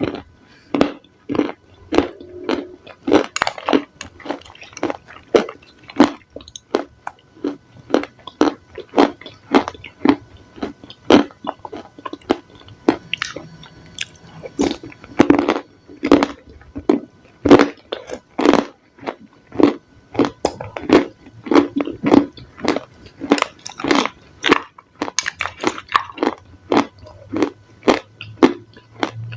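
A person chewing crunchy salad close to the microphone: a steady run of crisp, wet crunches, about one or two a second.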